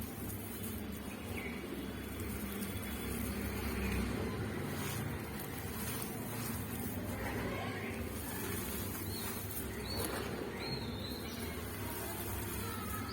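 Fine charcoal powder squeezed and pressed by hand, giving gritty crunching with a few sharp cracks and short high squeaks, most of the squeaks in the second half.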